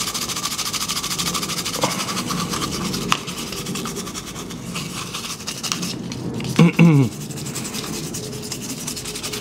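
Toothbrush bristles scrubbing fast and steadily over an acetone-smoothed PLA 3D print, brushing off the white residue left by the acetone. About seven seconds in comes a brief pitched sound that bends in pitch, louder than the brushing.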